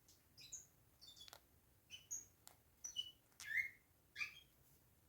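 Bourke's parakeet chirping softly in short, high notes mixed with sharp little clicks from its beak as it grinds it, about a dozen sounds in all, with the loudest chirp a little past the middle.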